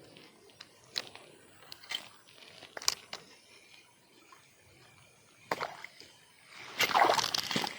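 Faint scattered ticks, a sharp snap about five and a half seconds in, then loud splashing and sloshing in the last second: a snakehead striking and thrashing on the lure in a weedy ditch.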